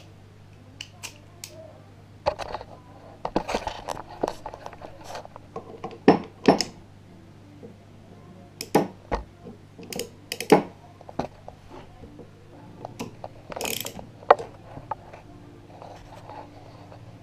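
Socket wrench and metal tools clicking and clinking against a Yamasaki pit bike engine as its bolts are worked loose, with irregular sharp knocks as the engine is handled on the table. A steady low hum runs underneath.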